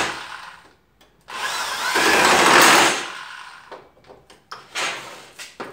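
Corded electric drill driving a screw into the garapeira hardwood of a homemade vise. The motor winds down in the first second, then runs again under load for about two seconds from just over a second in, its speed shifting, and stops. A few light clicks follow.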